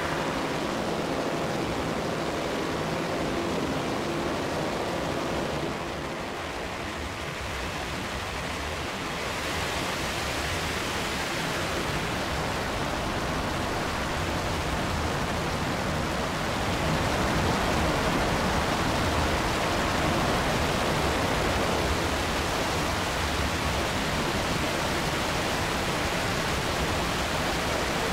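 Digital feedback loop in Ableton Live, fed back through a frequency shifter and reverb, producing a dense, steady rushing noise like a waterfall. The top end brightens about a third of the way in, and the noise grows a little louder just past halfway.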